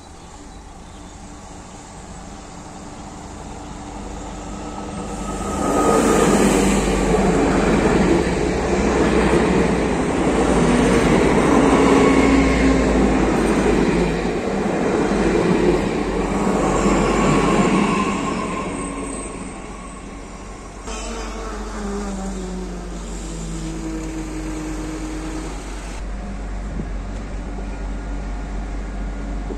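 A diesel AGC railcar (SNCF X 76500 series) approaches and passes close by. Its engine and wheels build up and stay loud for about twelve seconds before fading. After a cut, the railcar is heard at a station platform with its engine running steadily, and a few short falling tones come near the middle.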